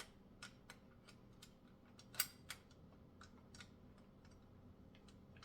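Faint, scattered clicks and taps of small metal parts being handled as a screw is fitted into the head of a VEVOR bike repair stand, with one sharper click a little past two seconds in.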